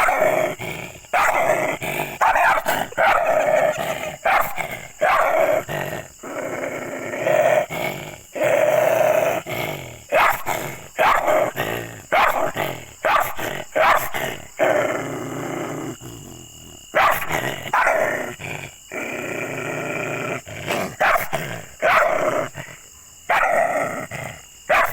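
A dog barking and growling aggressively in repeated loud bursts, some short barks and some longer snarling growls, with a brief lull about two-thirds of the way through.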